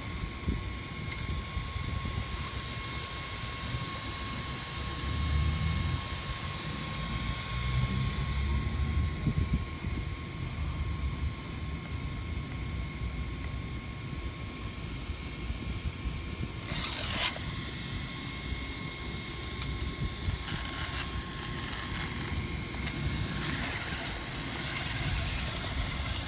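Electric radio-controlled rock crawler on an Axial SCX10 chassis, driving over rocks and concrete rubble: a steady thin whine over a low rumble, with a few brief clatters in the second half.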